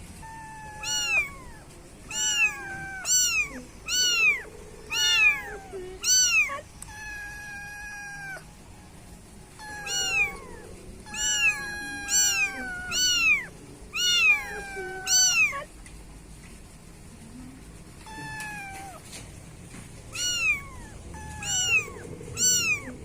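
Kittens meowing, short high-pitched cries repeated one or two a second in runs with brief pauses, mixed with a few longer drawn-out calls and some overlapping. These are young kittens crying after being left alone by their mother.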